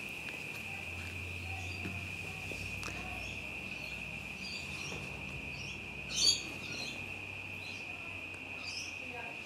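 Steady, high insect trilling, with scattered short bird chirps; the loudest chirp comes about six seconds in.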